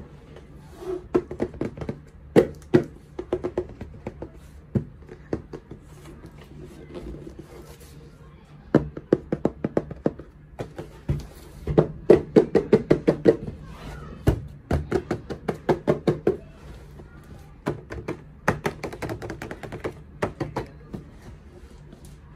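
Fingers tapping and handling a cardboard toy-oven box: quick runs of sharp taps, several a second, broken by short pauses.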